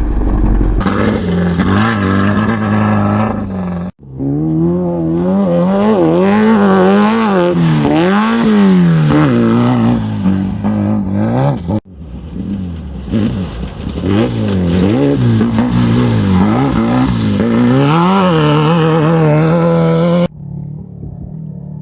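Off-road race vehicle engines revving hard under load, pitch climbing and dropping repeatedly with the throttle and gear changes. The sound breaks off abruptly three or four times as one clip cuts to another.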